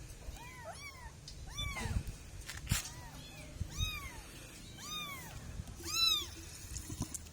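Kitten meowing over and over: short, high mews that rise and fall, about one a second, the loudest near six seconds in. A sharp knock sounds a little before three seconds in.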